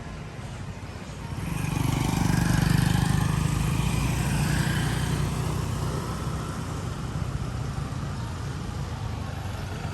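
A motor vehicle passing close on a city street: its engine swells about a second in, then fades slowly over a background of traffic noise.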